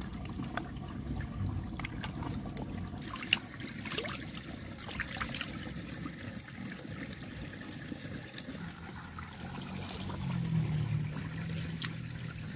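Water trickling and splashing as a gutted red pomfret is rinsed by hand in a shallow stream, with a few sharp clicks between about three and five seconds in.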